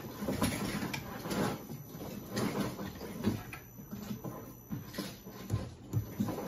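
Panasonic MSMA042C1N AC servo motor running on a test bench: a faint steady low hum under irregular clattering and knocking.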